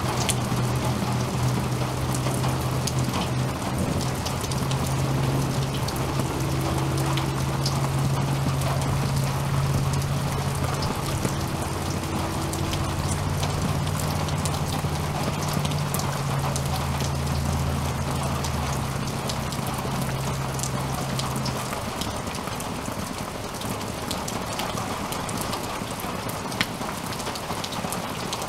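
Heavy rain falling steadily, with close drops ticking sharply now and then. A low, steady rumble runs under the rain and fades out about three-quarters of the way through.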